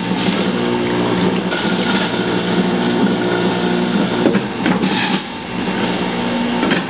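Centrifugal juicer motor running as broccoli is pushed down the feed chute with the plunger and shredded, a steady motor hum with a few short knocks part way through.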